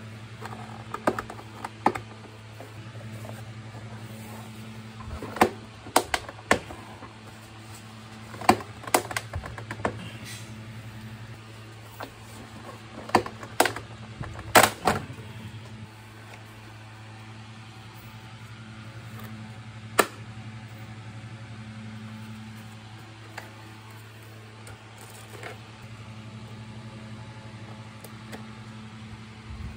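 Plastic parts of a vacuum cleaner's housing being handled and fitted by hand: scattered sharp clicks and knocks of plastic, bunched in short clusters, over a steady low hum.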